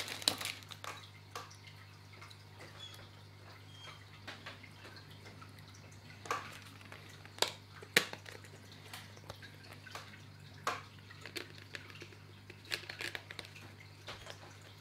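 Scattered light plastic clicks and taps from a screw-on plastic vent being handled and fitted into the hole in a plastic tub lid, over a low steady hum.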